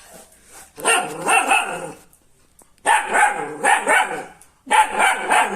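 Dog barking in three runs of quick barks, separated by short pauses.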